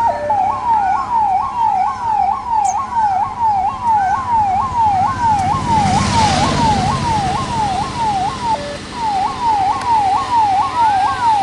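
Ambulance siren wailing in quick falling sweeps, about two and a half a second, after a brief two-tone hi-lo at the start, with a short break about eight and a half seconds in. A broad rush of vehicle noise swells about six seconds in.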